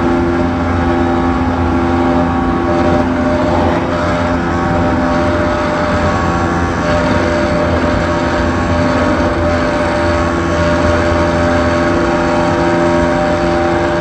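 E231-1000 series electric train car running at steady speed: a constant rumble with several steady humming tones over it, the abnormal noise the car is recorded for.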